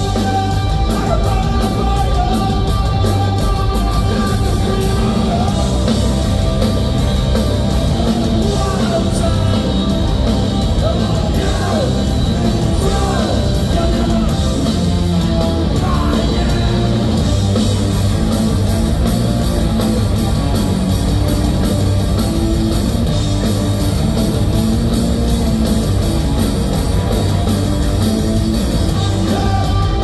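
Heavy stoner-rock band playing live: distorted electric guitars, bass and drums, loud and steady, with vocals in the middle of the stretch.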